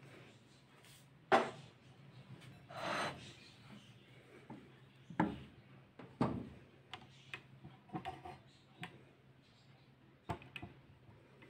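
A spatula stirring and scraping thick semolina-and-sago kheer in an aluminium saucepan, with a few scattered light knocks of the spatula against the pan.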